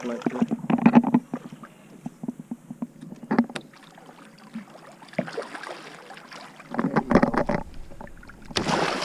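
Irregular knocks, clatter and handling noise on a small fishing boat while a hooked shark is at the boatside, with a denser cluster of thumps about seven seconds in.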